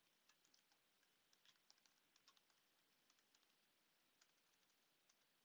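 Very faint computer keyboard typing: a run of irregular keystrokes that thins out near the end.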